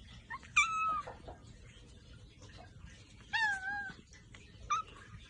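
Kitten meowing three times in a high voice, with a brief meow about half a second in, a longer wavering one around the middle, and a short one near the end.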